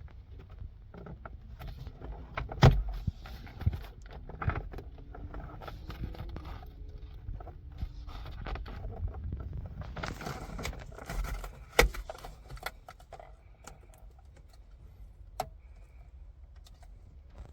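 Hand work on car interior trim: plastic clicks, knocks and rattles as screws are taken out and the overhead light console is pried loose, with two sharp snaps, one about three seconds in and one near twelve seconds.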